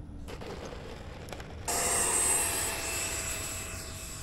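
Electric ducted-fan model jet running: first a softer rush, then, a little under two seconds in, a loud steady whine with jet-like hiss starts abruptly and slowly fades.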